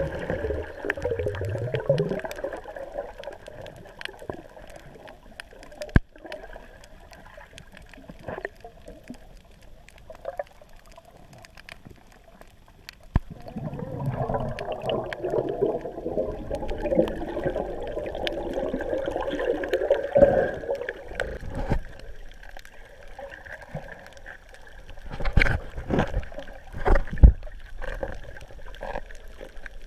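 Muffled underwater gurgling and sloshing of water heard through a camera's waterproof housing, swelling for several seconds midway, with scattered sharp clicks. A few loud knocks about 25 to 27 seconds in.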